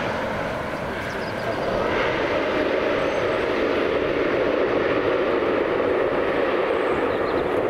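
Airliner engines running: a steady noise that dips slightly about a second in, then grows a little louder and deeper.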